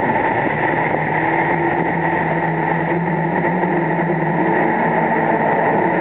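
Kawasaki four-stroke jet ski engine running steadily under way, over the rush of churning white water.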